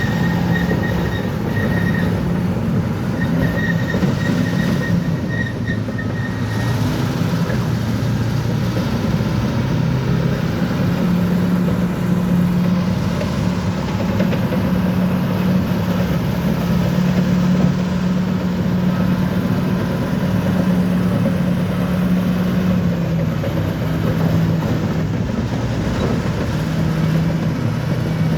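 Crawler bulldozer's diesel engine running steadily under load, with its steel tracks clanking, and a high-pitched squeal during the first six seconds or so.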